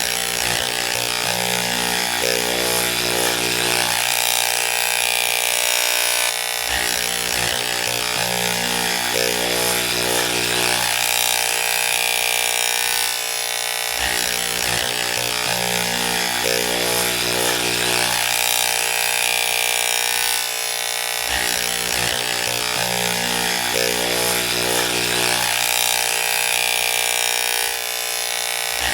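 Electric hair clippers running with a steady buzz. The tone and loudness shift slightly about every seven seconds.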